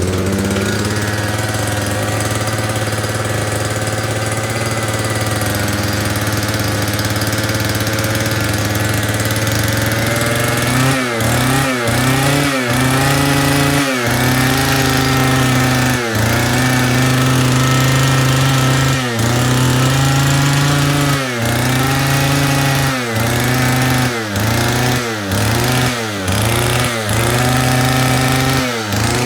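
Small two-stroke engine of a Mitsubishi TUE26 multi-tool trimmer running after being submerged in floodwater. For the first ten seconds it holds a steady speed. After that it stumbles over and over, the pitch sagging and recovering every second or two, and it winds down near the end.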